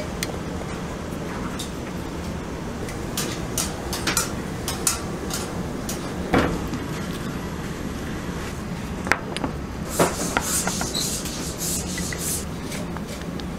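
Scattered light taps, clicks and crackles of grilled food being handled and set on a cutting board, with a sharp knock at the start and a denser run of crackly ticks near the end, over a steady low hum.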